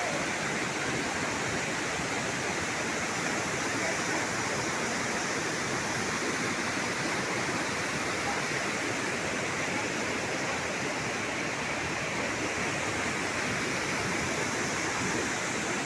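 A waterfall's steady rushing roar of falling water.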